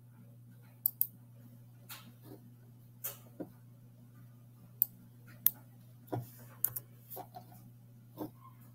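About a dozen short, sharp, irregularly spaced clicks from working a computer's mouse and keys, over a faint steady low hum.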